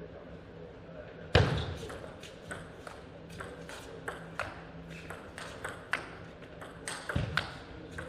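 Table tennis rally: the celluloid-plastic ball clicking sharply off the paddles and the table in quick succession, a few hits a second, starting about a second and a half in. A heavy thump opens the rally and another comes near the end.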